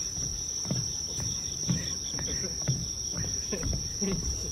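Insects chirring in one steady, high-pitched trill, with footsteps thudding on a footbridge about twice a second.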